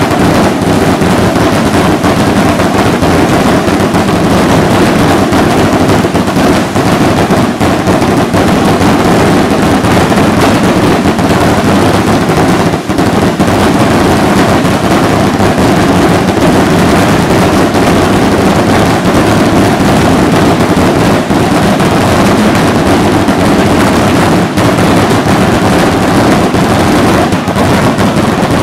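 A dense, unbroken barrage of firework rockets (cohetes) going off at close range: continuous crackling and banging, very loud throughout with no pause.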